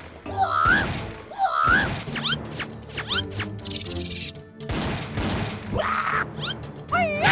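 Cartoon soundtrack: upbeat background music with comic sound effects, among them repeated wavering squeaky cries, quick rising whistle sweeps and short whooshes.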